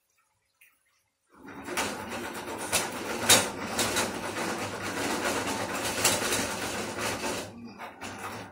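Pan of coconut-milk fish rundown simmering on a gas burner with a dense crackle, starting about a second and a half in, with clicks and knocks as the pan is taken by its handle and moved.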